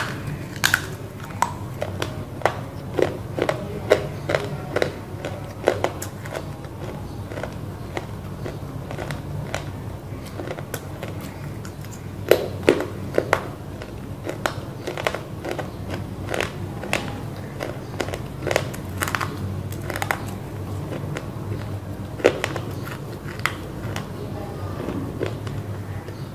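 Close-up biting and crunching of hard chunks of roasted clay (mitti): sharp crunches come in irregular runs, with chewing between them. A steady low hum runs underneath.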